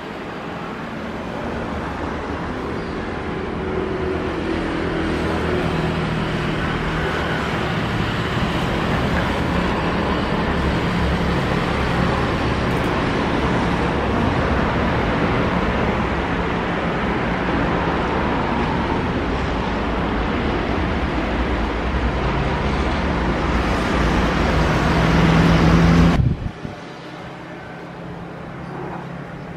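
Boeing 737 jet engines at takeoff power: a deep, rumbling roar that builds over the first few seconds, grows loudest near the end, and cuts off suddenly, leaving a fainter steady engine noise.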